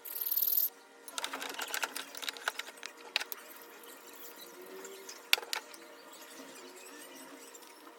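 Handling of a single-bevel yanagiba sashimi knife on a whetstone: a short hiss right at the start, then scattered clicks, taps and scraping of the blade against the stone, with one sharp click a little past the middle.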